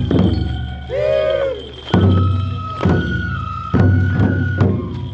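Japanese folk festival music: large drums struck in a loud, uneven beat, with high held notes, likely from a bamboo flute, that step in pitch through the middle, and a short rising-and-falling call about a second in.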